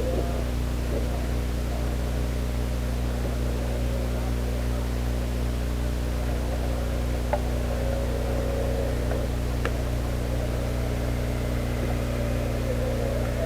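A steady low hum made of several fixed tones over a hiss, with faint distant voices and a couple of faint clicks.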